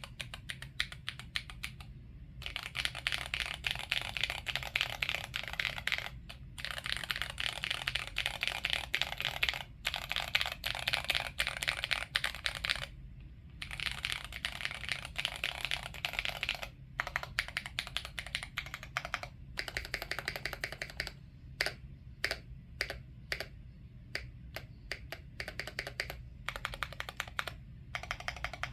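Typing on a Wind Z75 mechanical keyboard: fast, continuous runs of key clicks broken by short pauses, then slower, separate keystrokes with gaps in the second half.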